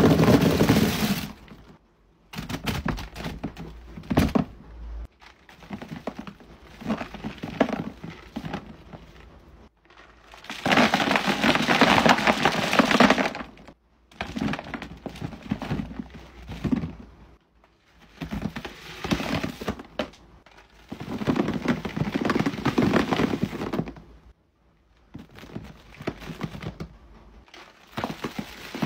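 Loose candies poured into a clear plastic bin in about eight separate batches, each pour a clattering rattle of pieces landing on the plastic and on the candy already there, with short pauses between pours.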